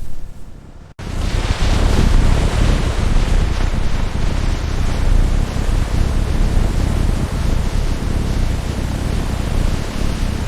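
Dense, steady rumble of heavy scrap-handling machinery, cutting in abruptly about a second in after a short quieter moment.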